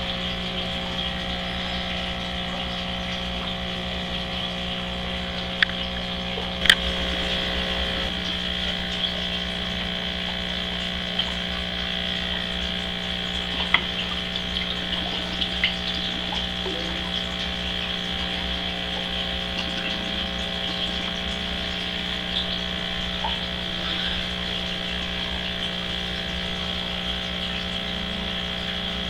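Steady hum and water flow of saltwater aquarium pumps running, with a mains-type hum and a hiss, broken by a few short clicks.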